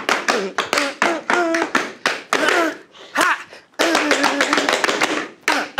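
Tap shoes of two dancers striking a hard dance board in a fast rhythm of toe taps, heel drops and stamps, with a brief lull about three seconds in. Short vocal calls ring out among the steps.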